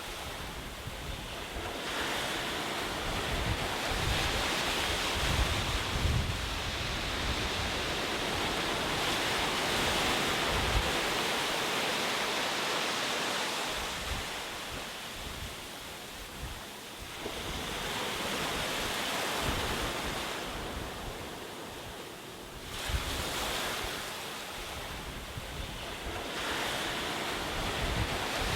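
Ocean surf: waves breaking and washing in, the rush of water swelling and ebbing every several seconds.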